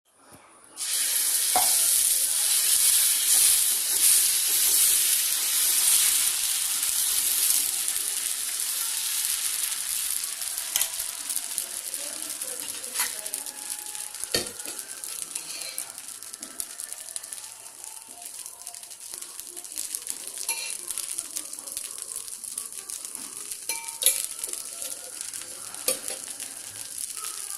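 Dosa batter sizzling on a hot griddle (tava), starting suddenly about a second in, loudest over the first several seconds and then slowly dying down, with a few sharp clicks of a utensil against the pan.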